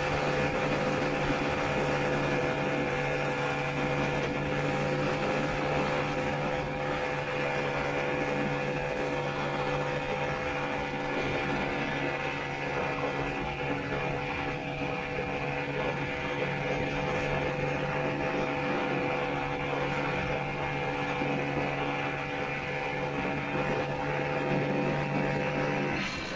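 Vintage Ski-Doo snowmobile's two-stroke engine running at a steady cruising speed, heard close up from the rider's seat, its pitch holding level throughout.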